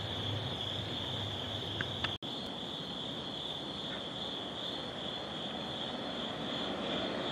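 Night insects chirring in a steady, unbroken high trill. The sound drops out for an instant about two seconds in.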